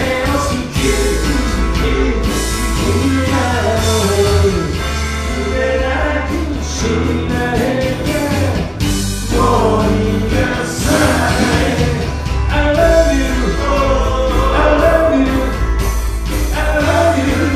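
Live rock band playing a song with a lead singer, over a steady bass line.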